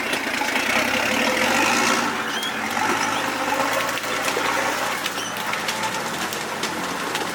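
Off-road vehicle's engine running at low revs, its pitch wavering a little in the first couple of seconds and then steadying, with scattered short knocks over it.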